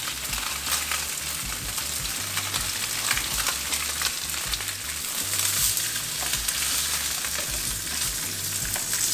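Sesame-crusted blackfin tuna loins searing in sesame oil in a very hot frying pan: a steady sizzling hiss with small crackles.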